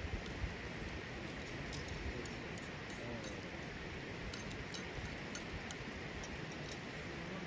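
Wood campfire burning, small sharp crackles and pops scattered over a steady hiss.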